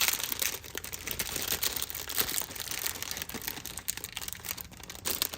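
Crinkling and small irregular clicks of hands handling packaging while taking out a small plastic applicator tip for a dropper bottle.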